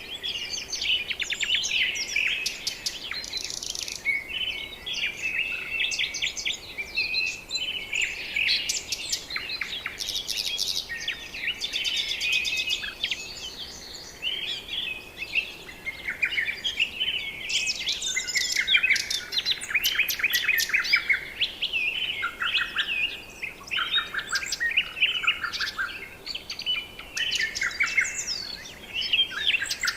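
A chorus of many birds chirping and singing at once, with overlapping rapid high chirps and trills.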